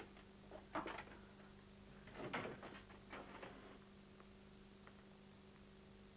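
A steady electrical hum on an old soundtrack, with a few faint shuffles and footsteps during the first three seconds or so as someone gets up and walks out of the room.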